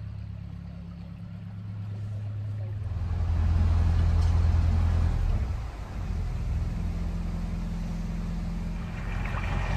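Narrowboat's diesel engine running at low revs, a steady low hum that grows louder about three seconds in and dips briefly near the six-second mark.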